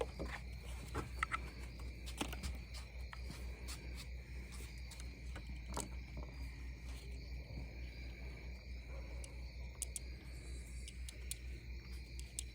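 Crickets or other insects trilling as a steady high drone, with scattered light clicks and knocks over it.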